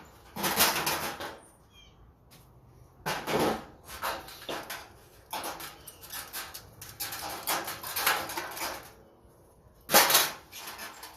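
Irregular scraping, rattling and clicking of sheet-metal fluorescent light fixture parts being handled and pulled apart, in several bursts with short pauses, the loudest near the start and again near the end.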